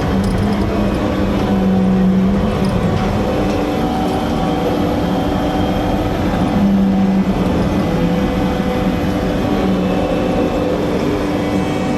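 Vehicle driving on the road: steady engine and tyre drone with a few humming tones that shift a little in pitch.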